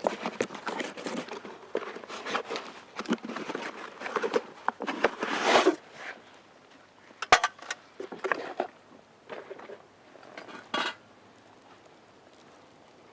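Camp cooking gear being handled: a run of rustles, clinks and knocks, with a longer rustle about five and a half seconds in and sharp single knocks near seven and eleven seconds, after which it goes quiet.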